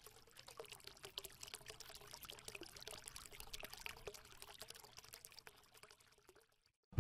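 Faint trickling, pouring water with many small crackles, dying away about six seconds in.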